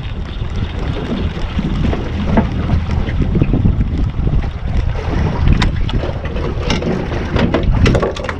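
Wind buffeting the microphone on a small boat at sea: a steady low rumble, with a few sharp knocks and clicks in the second half.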